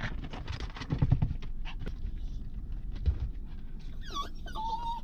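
Black toy poodle whining: a high whine that dips and rises in pitch about four seconds in, then holds one steady tone, wanting to get out of the car. Before it, rustling and a thump of movement on the seat.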